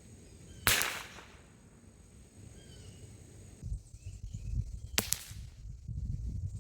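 .22 LR rifle firing a subsonic round without a suppressor, heard from 30 yards: a sharp crack with a short echo about a second in. A second, shorter and quieter crack follows about five seconds in.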